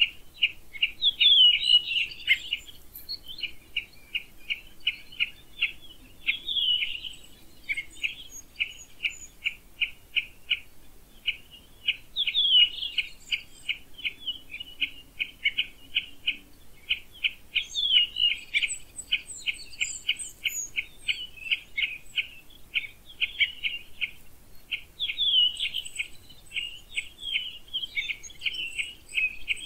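Woodland birds calling: one bird repeats a short, sharp call about three times a second, a louder sweeping song phrase breaks in every few seconds, and fainter high calls from other birds sit behind.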